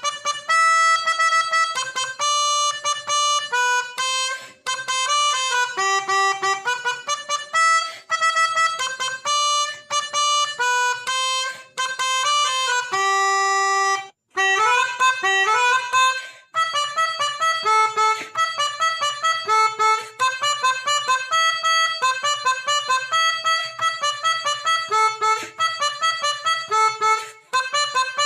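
Basuri telolet bus horn playing a tune: a string of reedy held notes stepping up and down, with a brief break about halfway followed by a run of climbing notes.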